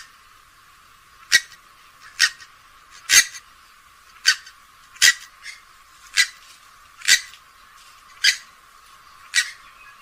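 Swamphen giving a series of short, sharp calls, about one a second.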